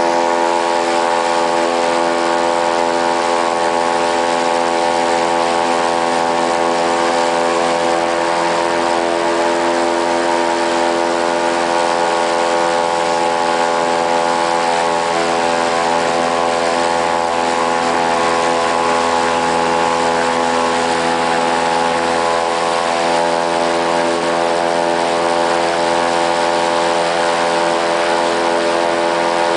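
Airboat engine and large air propeller running steadily at cruising speed, heard from on board: a loud, even drone at a constant pitch.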